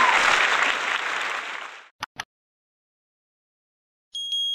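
Applause fading out over the first two seconds, then two short clicks. After a silence, a bright bell-like ding rings about four seconds in, as a subscribe-button animation sound effect.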